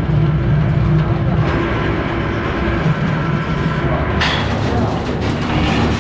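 Rack-and-pinion construction hoist running as its cage climbs the mast: a steady mechanical drone with a low hum and a few steady tones. From about four seconds in it gives way to a metal clatter and rattle as the cage's mesh gate is opened at the top.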